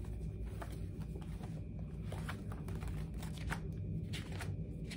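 Paper rustling as drawing sheets are handled and turned, with a handful of short crisp rustles in the second half, over a steady low hum.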